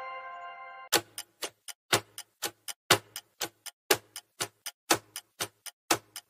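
Tail of a chime fading out, then about a second in a clock-ticking countdown sound effect starts: about four ticks a second, every fourth one louder.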